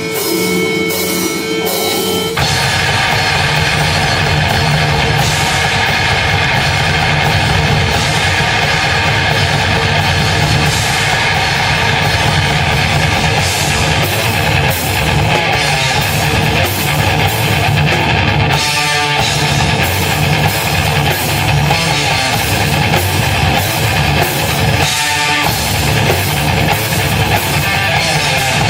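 Live rock band playing a heavy song on guitars and a drum kit, loud, with the drums joining about two seconds in.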